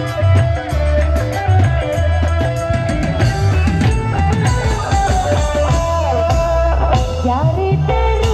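Kecimol band music played loud through big loudspeaker stacks: a heavy, even bass drum beat with drum kit and guitar under a wavering lead melody that slides down and back up near the end.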